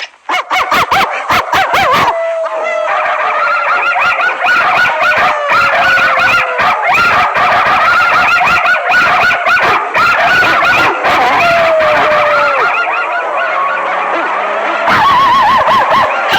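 Bulldog howling in long, wavering cries. There are sharp clicks in the first two seconds.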